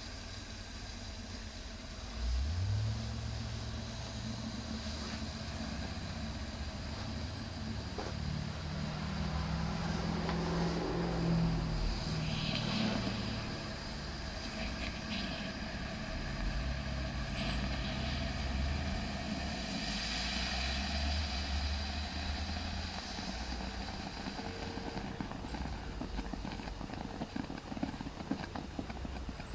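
A low machine hum that starts abruptly about two seconds in and runs steadily, its pitch shifting in the middle.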